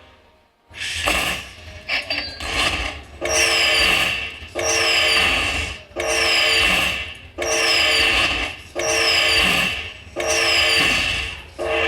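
Slot machine hold-and-spin bonus sounds: after a brief hush, a chord-like tone with falling high whistles repeats about every second and a half.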